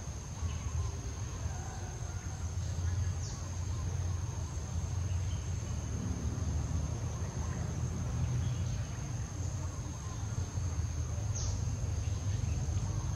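A steady high-pitched insect drone over a low rumble, with two brief high chirps, about three and eleven seconds in.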